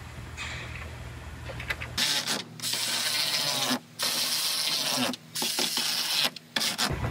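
Loud hissing that starts about two seconds in and breaks off and resumes several times, short sharp stops between bursts.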